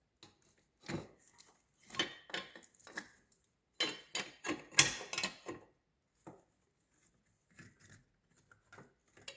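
Irregular clicks and knocks of a small bracket being handled and fitted into place among engine parts, busiest between about one and six seconds in, then only a few faint ticks.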